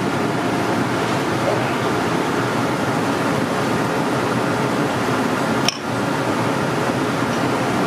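Steady, even rushing noise like a running fan or ventilation. It is broken by one brief sharp click with a short dip in level nearly six seconds in.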